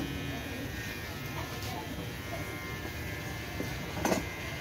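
Electric hair clipper buzzing steadily as it is run over a nearly bald scalp, shaving the head down to the skin. A short louder noise cuts in about four seconds in.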